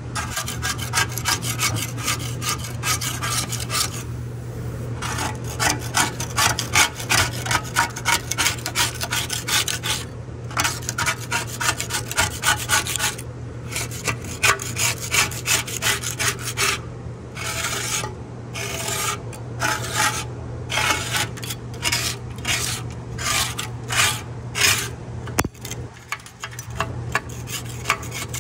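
Quick back-and-forth hand scraping strokes, several a second, in runs broken by short pauses, over a steady low hum.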